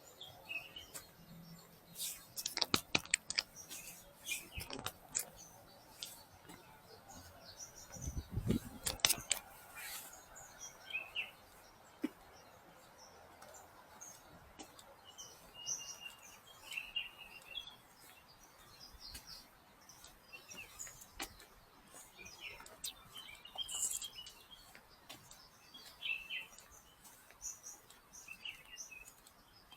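Small birds chirping, with short calls scattered throughout. A few sharp clicks and knocks come in the first ten seconds and are the loudest sounds.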